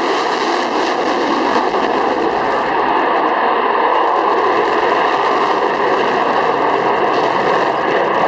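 RAF Chinook twin-rotor helicopter flying its display: a loud, steady turbine and rotor noise with a few steady whining tones running through it.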